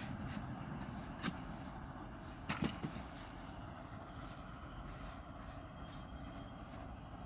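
A few sharp knocks, one about a second in and three close together around two and a half seconds in, over a steady low rumble.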